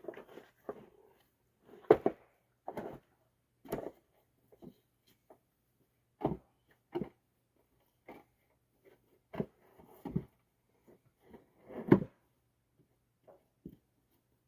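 Pieces of bluestone being handled and set down on a pallet: a dozen or so irregular knocks and clunks of stone on stone, the two loudest about two seconds in and near the end.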